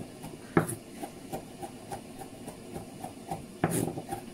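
Knife cutting a Madame Jeanette pepper on a cutting board: a sharper knock about half a second in, then quick light taps about three a second, with a louder knock near the end.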